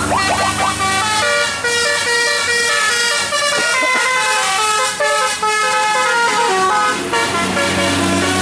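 Bus telolet horn, a Basuri musical air horn, playing a quick tune of short stepped notes, over the low hum of the bus's engine.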